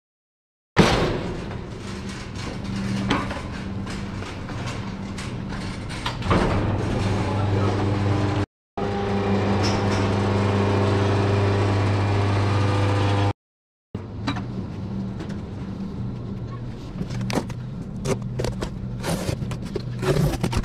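Knocks, clatter and scrapes of a metal display stand and cardboard potato bin being handled, over a steady low electrical hum.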